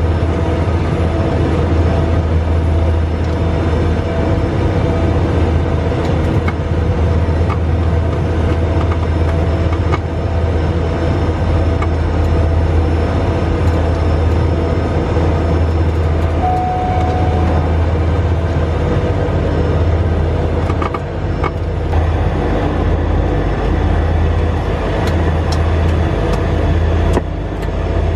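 Cessna 208B Grand Caravan's single PT6A turboprop engine and propeller, heard from inside the cabin while the aircraft taxis: a loud, steady low drone with a fainter tone above it. In the last several seconds the drone wavers, and a few light clicks come through near the end.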